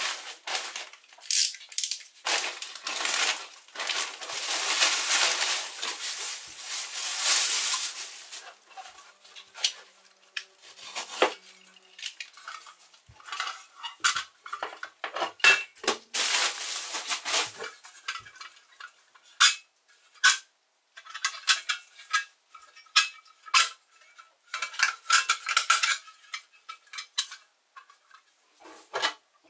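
Wrapping being rustled and pulled away from a rusty pressed-metal toy trailer, with many light clinks and clicks as its metal parts are handled. The rustling is densest in the first third and briefly again past the middle.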